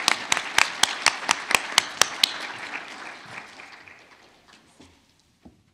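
Audience applauding, with one nearby pair of hands clapping about four times a second over the spread-out applause of the room. The close claps stop a little past two seconds in and the applause fades out over the next two seconds, with one small knock near the end.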